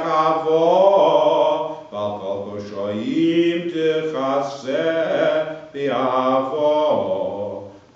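A cantor chanting Hebrew liturgy solo in a male voice, in long melismatic phrases with gliding pitch, three phrases with short breaths between them.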